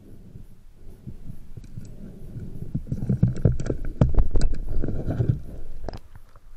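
Band-powered speargun being loaded underwater: low rumbling of water and handling builds from about three seconds in, with a run of sharp clicks and knocks as the rubber bands are stretched back along the shaft.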